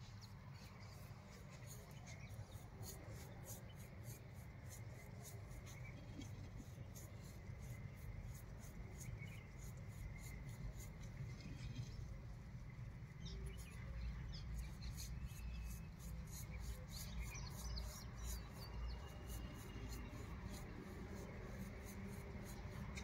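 Paintbrush bristles stroking and dabbing on the rough outside of a cement planter pot: a faint, scratchy brushing of many quick strokes, several a second, over a low steady rumble.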